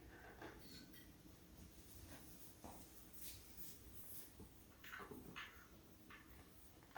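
Near silence, with faint scattered rustling and soft handling noises.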